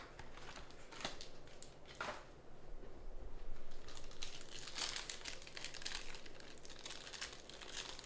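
Foil trading-card pack wrapper crinkling and tearing as it is pulled open by hand: a few separate crackles, then a denser run of crinkling midway.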